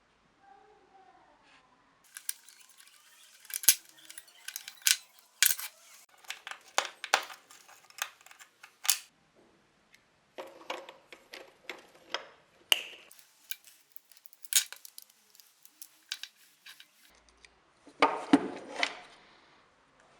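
Irregular clicks and clinks of small metal parts and hand tools being handled, with a short louder scraping rattle near the end.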